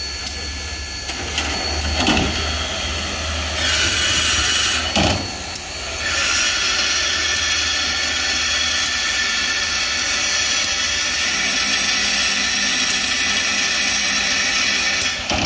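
Steam hissing from the side of Union Pacific Big Boy 4014: the boiler feedwater system cycling to put water into the boiler. A short hiss comes first, then a steady hiss from about six seconds in that cuts off suddenly near the end, over a low rumble and a couple of clanks early on.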